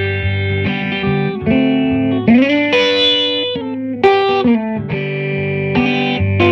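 1957 Gibson ES-225TD hollow-body electric guitar played through an Allston guitar amp set to about 75% volume with a little reverb, giving some breakup. It plays ringing chords and notes, with a sliding note a little over two seconds in.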